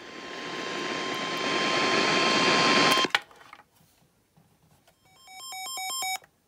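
Radio static hiss swells for about three seconds with a steady high tone beneath it, then cuts off with a click. About two seconds later a rapid run of electronic beeping tones, changing pitch every fraction of a second, lasts just over a second and stops abruptly.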